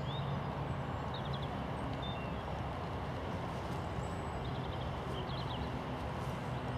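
Steady outdoor rumble with a low hum, over which small birds give a few short chirps and trills, once near the start, again around the middle and again near the end.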